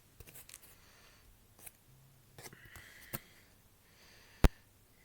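Handling noise from a YouTube play button plaque and its packaging. A few light clicks and taps come through the middle, then one sharp, loud knock about four and a half seconds in.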